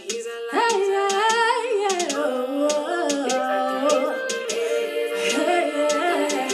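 A gospel song performed live: a singer's long, sliding vocal lines with no clear words over musical accompaniment, with light regular percussive ticks.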